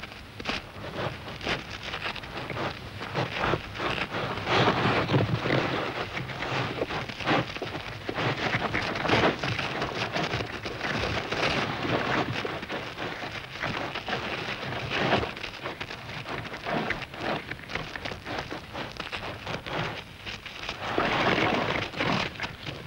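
Dense crackling and gritty rustling noise that swells and fades in waves, with low rumbles under the loudest stretches.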